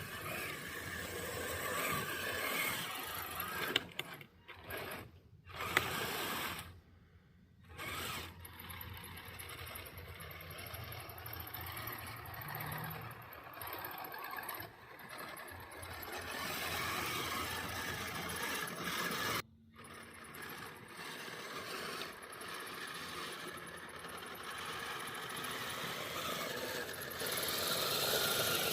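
Kyosho Blizzard RC snowcat running, its electric motor and gearbox whirring and its metal tracks clattering. The noise stops briefly several times, mostly in the first third, as it halts and moves off again.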